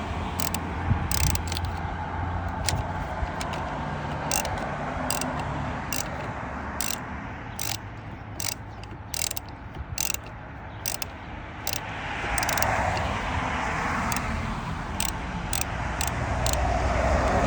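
Ratchet wrench clicking in short, irregular strokes, roughly one or two clicks a second, as a battery terminal clamp nut is tightened. Under it runs a low hum, and a rushing noise swells in the last few seconds.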